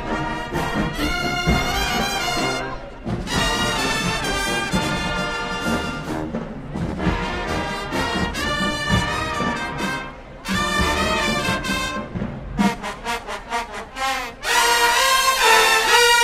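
Marching band brass section, sousaphones included, playing loud sustained chords. About three-quarters through it breaks into a quick run of short, clipped stabs, then swells to its loudest held chords near the end.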